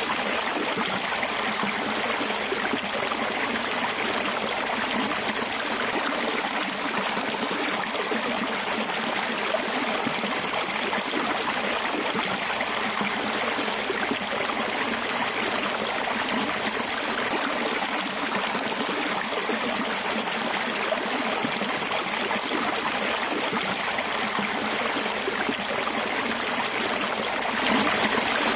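Water rushing steadily down a concrete channel and splashing through a small water wheel built from a tyre. It is a little louder near the end.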